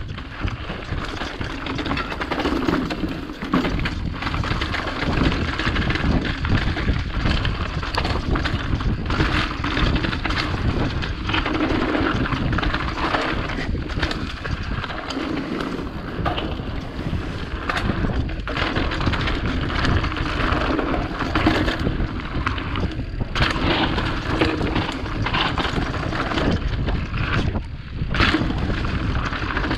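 Mountain bike riding down a rocky gravel trail: tyres rolling and crunching over loose stones, with frequent knocks and rattles from the bike over the bumps, and wind noise on the microphone.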